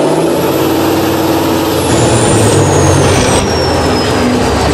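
Diesel engine of an off-road trial truck working under load as the truck crawls over rough ground, its note swelling and shifting in pitch, with a high whine that slowly falls in pitch.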